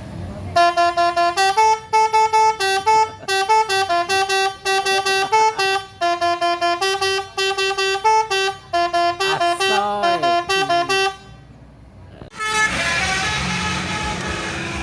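Telolet bus horn, a set of tuned horn trumpets, playing a quick tune of short two-note blasts that step up and down in pitch, stopping about 11 seconds in. After a brief pause, a steady, noisier sound without a tune takes over near the end.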